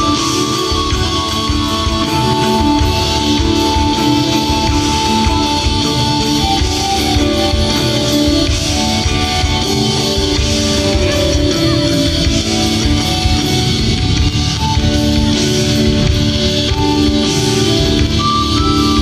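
Live band playing an instrumental passage of a rock song: drum kit and bass guitar under long held lead notes from guitar and keyboard.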